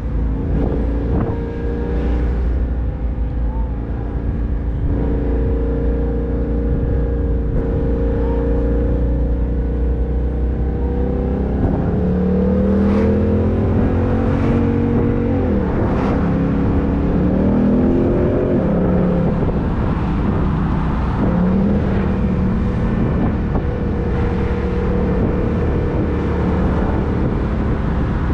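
Ford Mustang GT's 5.0-litre V8 running under way, heard through the open-top cabin with wind and road noise. About halfway through, the engine note climbs and drops a few times as the car accelerates and the automatic shifts gears, then settles back to a steady cruise.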